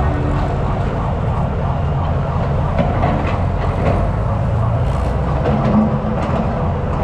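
Heavy road-construction machinery running with a steady rumble and scattered metallic clanks and rattles.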